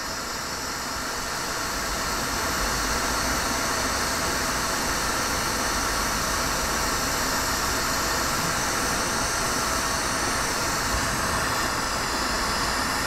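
Lampworking bench torch flame hissing steadily while glass is worked in it, growing a little louder about two seconds in.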